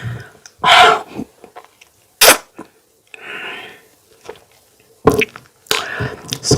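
Close-up eating and mouth sounds: a handful of short, sharp smacks and breathy bursts with pauses between them, the sharpest about two seconds in.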